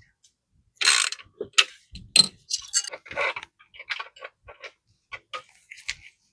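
Irregular metallic clicking and scraping of a hand tool on metal as the wheel's axle bolt is put back into the electric scooter's fork and tightened.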